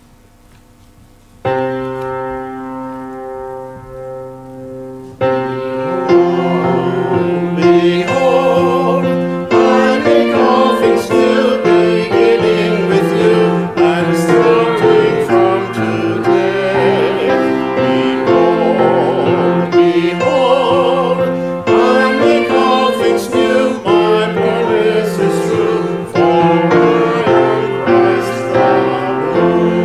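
Grand piano playing a hymn: a single chord about a second and a half in, then fuller playing from about six seconds, with a man's voice singing along.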